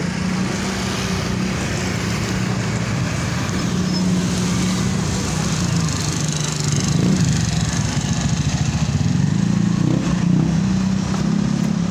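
Motor scooters riding past one after another, their small engines running with a steady low hum that swells as each one comes close.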